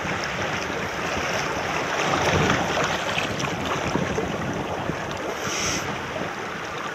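Shallow water lapping and sloshing around a wading angler's legs, with wind buffeting the microphone. A short high hiss comes about five and a half seconds in.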